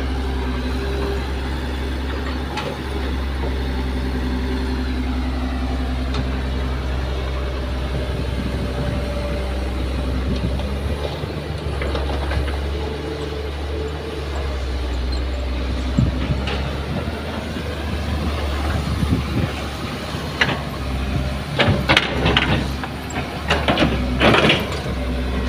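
Diesel engine of a Kobelco SK200 excavator running steadily under load as it digs and loads a dump truck. Over the last ten seconds a series of sharp clanks and rattles rise above the engine.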